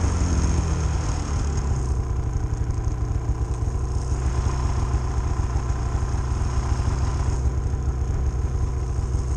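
Snowmobile engine idling steadily, a low, fast, even pulsing.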